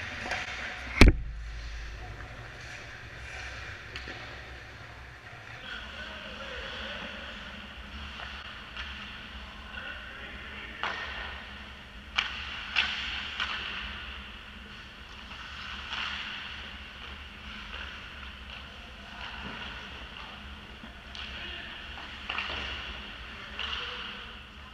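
Ice hockey play: skate blades scraping on the ice and scattered clacks of sticks and puck. A single loud, sharp crack about a second in, as of a puck or stick striking something hard.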